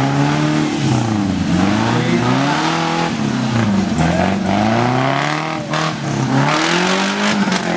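Off-road buggy's engine revving hard, its pitch climbing and dropping again and again as it is worked through deep mud, with a few sharp knocks near the end.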